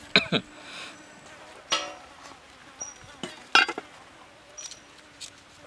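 A few sharp knocks and clinks of ingredients and cookware being handled during outdoor food preparation, the loudest in the first half second and about three and a half seconds in, with short high chirps in the background.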